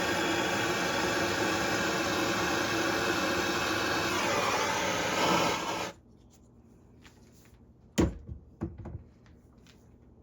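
A heat gun blows steadily on a piezo pilot generator assembly under a heat test. Its pitch dips and wavers shortly before it cuts off suddenly about six seconds in. A couple of sharp knocks follow about two seconds later.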